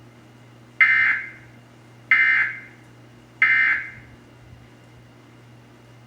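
Emergency Alert System end-of-message tones: three short, harsh buzzing data bursts about 1.3 seconds apart, the signal that closes an alert test.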